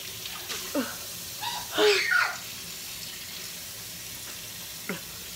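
Kitchen faucet running steadily into a stainless steel sink, with short vocal outbursts over it, the loudest about two seconds in.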